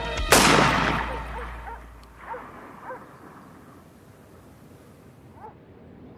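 A single gunshot sound effect about half a second in, loud and sudden, dying away over a second or so as the music cuts off. It is followed by a few faint short squeaks.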